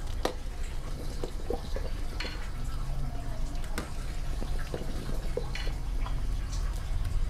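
Metal ladle stirring a thick red pork sauce in a large stainless-steel pot, with scattered light clinks of the ladle against the pot over a steady low rumble. The sauce is thickening as tapioca starch is stirred in.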